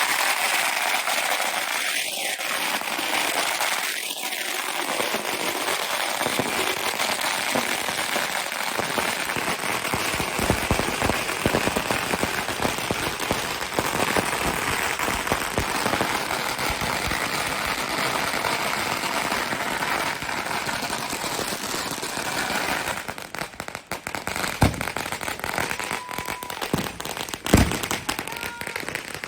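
Fireworks and firecrackers going off: a dense, continuous crackling and popping that thins out late on, with a few louder single bangs near the end.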